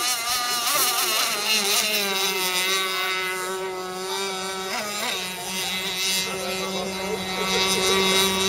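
Radio-controlled racing boats running flat out across the water: a steady, high-pitched engine whine whose pitch wavers as the boats turn, with a brief dip and rise in pitch about five seconds in.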